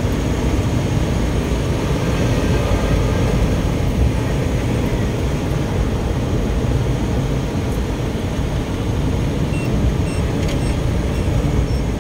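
Steady road and engine rumble inside a moving car's cabin. A faint, quick, evenly repeating beep starts near the end.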